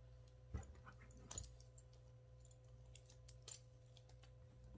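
Near silence: faint room hum with a few soft, scattered clicks.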